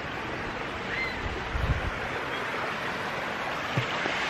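Steady rush of flowing stream water, growing slightly louder. A short bird chirp about a second in, and a few low thumps near the middle and again near the end.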